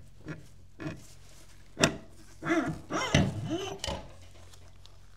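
Torque converter being slid off a GM 6L90E transmission's input shaft: a sharp metallic clack about two seconds in, then a second or so of groaning, voice-like sounds.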